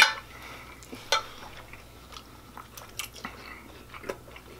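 Steel knives and forks clinking and scraping on white ceramic plates as steak is cut, a few scattered sharp clinks, the loudest at the start and about a second in.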